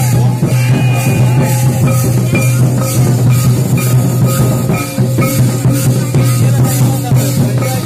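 Santali Karam dance music: hand drums beating a steady beat, with rattling percussion over it, loud.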